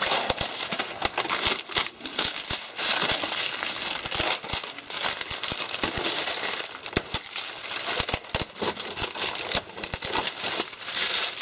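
Clear plastic packaging crinkling and rustling as hands handle it while unpacking rifle parts from a box with polystyrene foam inserts, with many small clicks and knocks of parts and packing.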